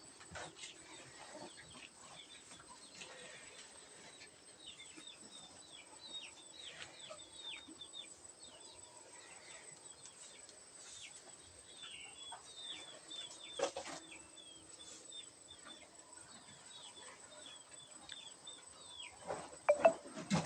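Chickens: a steady run of short, high, falling peeps, with a few louder calls, the loudest near the end.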